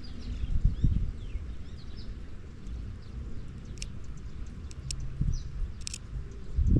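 Small birds giving short, falling chirps over a steady low rumble, with a low thump a little under a second in. Scattered sharp clicks follow in the second half.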